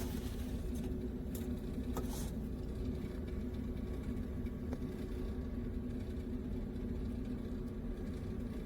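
A steady low mechanical hum, with a few faint clicks in the first couple of seconds.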